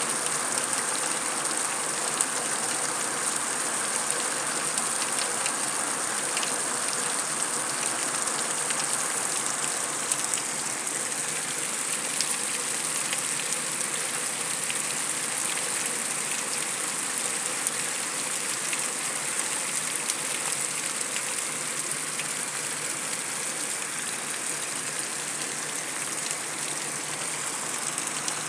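Heavy rain falling on concrete: a steady, even hiss of rainfall with many small sharp ticks of individual drops striking the hard surface.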